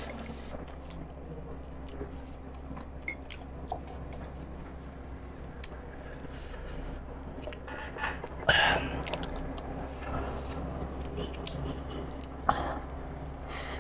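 Chewing and biting into pork siomai dumplings dressed in chili garlic oil: soft wet mouth sounds, a couple of light clicks about three seconds in, and two louder bites about eight and a half and twelve and a half seconds in.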